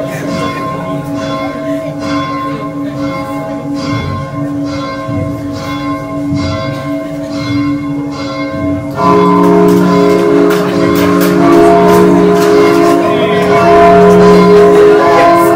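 Church bell ringing in an even rhythm, about three strokes every two seconds, each stroke left ringing. About nine seconds in, louder music with long held notes comes in.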